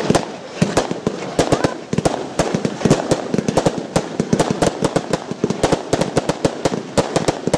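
Aerial fireworks shells bursting in quick, irregular succession: a dense volley of sharp bangs and reports, several a second.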